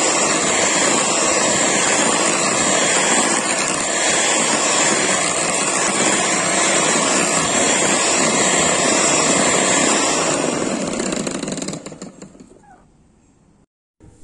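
Electric hand mixer running steadily, its twin wire beaters whipping cold cream and sugar in a bowl. It stops about twelve seconds in.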